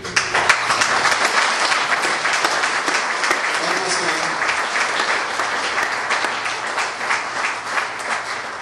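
Audience applauding: many hands clapping, starting suddenly and easing off near the end.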